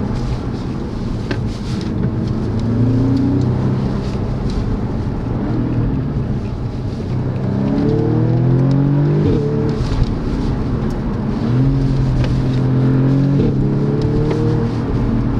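Audi S3's 2.0 TFSI turbocharged four-cylinder accelerating, its note climbing in pitch and dropping sharply at upshifts, twice in the second half, over a steady low rumble of noise.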